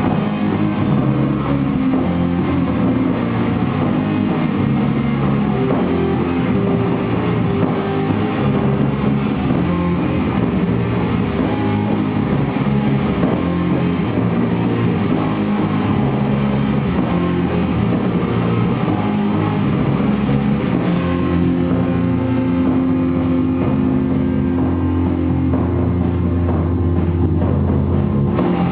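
Rock music with guitar and a drum kit playing steadily.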